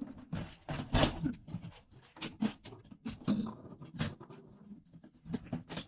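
Irregular clatter of tools, parts organisers and plastic tool cases being handled and set down in a van's cargo area: a string of short knocks and rustles.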